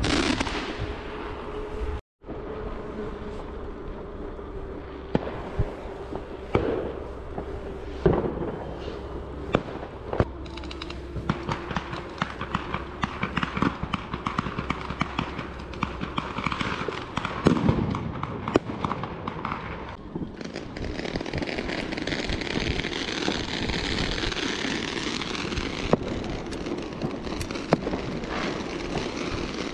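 Fireworks and firecrackers going off all around: a continuous run of scattered bangs and crackles, with the loudest reports about 8 seconds in and again around 17 to 18 seconds.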